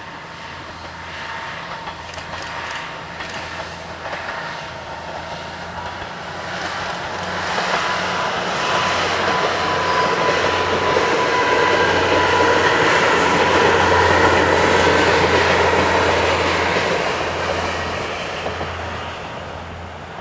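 Two-car KiHa 110 series diesel railcar train passing: its engine and wheels grow louder from about seven seconds in, are loudest around two-thirds of the way through, then fade as it moves away. A steady high whine and a low hum run under the passing noise, with a few clicks in the first seconds.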